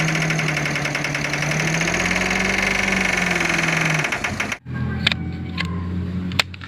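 Dump truck engine idling with a fast, even pulse, its pitch rising slightly and settling back before it cuts off about four seconds in. After a short break a lower engine hum follows, with a few sharp clicks.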